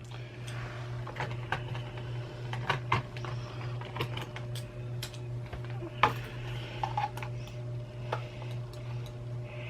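Irregular small clicks and taps of a Razer computer mouse's plastic shell being handled and pried at to pop its bottom off, over a steady low hum.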